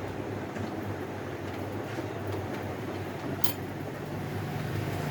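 Steady low background hum of a shop room, such as a fan or air conditioner, with one sharp click about three and a half seconds in.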